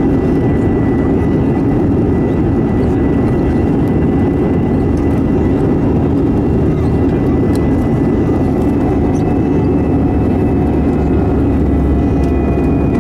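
Steady engine noise of an Airbus A320-200 airliner heard inside the cabin, with a thin, high, steady whine over it.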